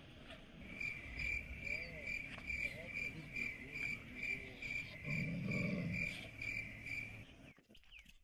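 A cricket chirping in a steady, even rhythm, a little over two chirps a second, stopping about a second before the end; a faint low rumble rises and falls around five to six seconds in.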